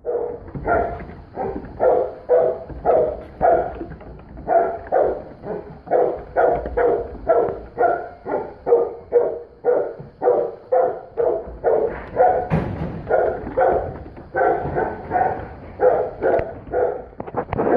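A farm dog barking over and over, about two to three barks a second, with short breaks about four and ten seconds in.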